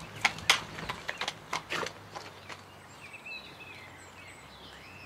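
A shod horse's hooves clopping on hard ground in an irregular walking rhythm, fading out after about two and a half seconds. Small birds then chirp faintly.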